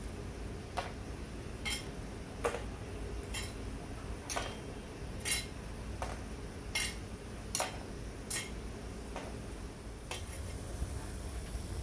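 Metal tongs clicking against a steel pot lid and lumps of charcoal as burning coals are arranged on the lid: about a dozen sharp clicks, roughly one a second.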